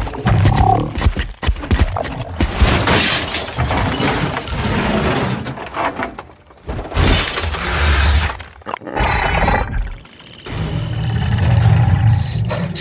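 Movie sound effects of a giant mantis smashing a car: a string of crashes with breaking and shattering glass, creature roars, and music under it.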